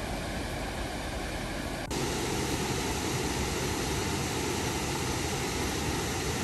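Steady rush of water pouring over a low river weir. About two seconds in the sound changes abruptly to a louder, fuller rush.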